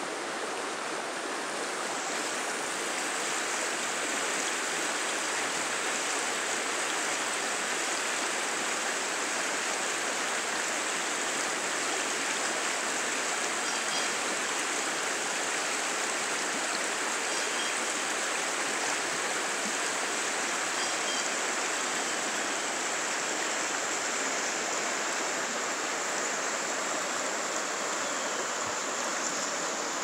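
Shallow mountain river running over rocks and riffles: a steady, even rush of flowing water.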